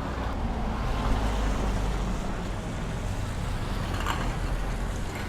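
Steady low rumble of a running vehicle, with a faint brief sound about four seconds in.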